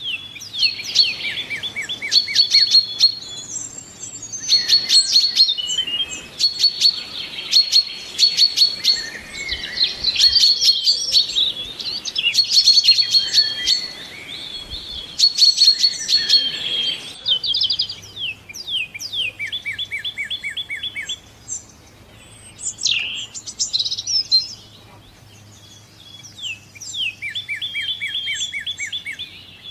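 Several songbirds singing with overlapping songs, each phrase a quick run of repeated high notes. The chorus is busiest in the first half and thins to single phrases in the second.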